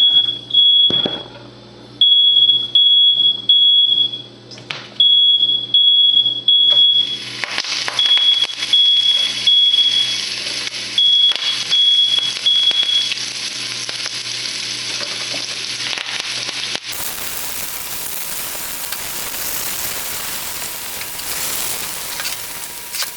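Smoke alarm sounding in repeated groups of three high beeps, set off by smoke from frying; the beeping stops about 13 seconds in. Under and after it, oil sizzles loudly as onion rings fry.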